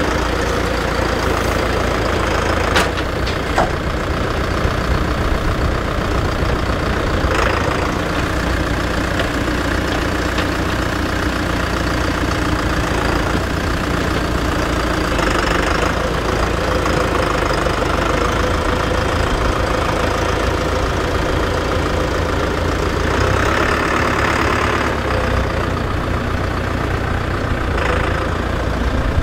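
Tractor diesel engine running steadily, with a few brief spells of louder noise on top.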